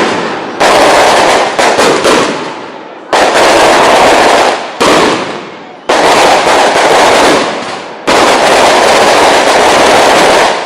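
Fireworks going off in a series of loud, sudden bangs at irregular intervals, each trailing off over a second or two.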